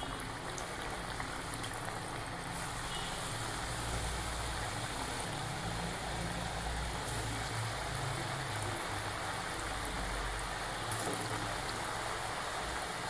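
Ragi (finger millet) murukku deep-frying in hot oil in a steel kadai: a steady, vigorous sizzle of bubbling oil as water cooks out of the freshly added dough. The sizzling goes on until the murukku is cooked through and is taken out once it dies down.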